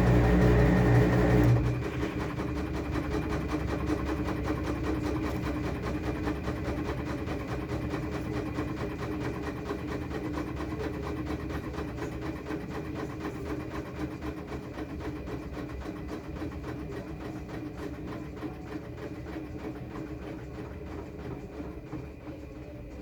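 Washing machine at the end of its spin cycle: the loud motor sound drops off suddenly about a second and a half in, then the drum goes on with a fast, steady rattle that fades gradually.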